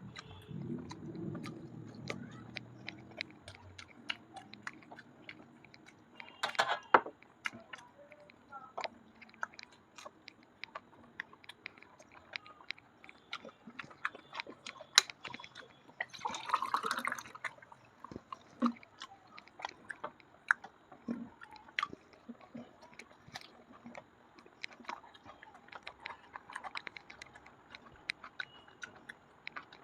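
A person chewing food close to the microphone, with many small wet clicks and smacks. There are louder bursts about 7 and 17 seconds in.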